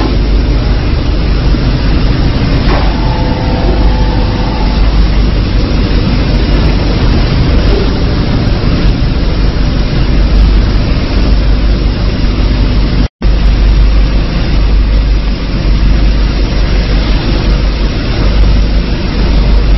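Loud, steady machinery running, with a deep hum under a dense noise. A brief higher whine comes in about three seconds in, and the sound cuts out for an instant about thirteen seconds in.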